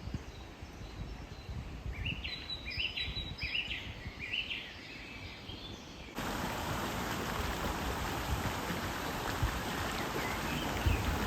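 A bird sings a few short, quick phrases over a low rumble. About six seconds in, the sound cuts suddenly to the steady rush of flowing water.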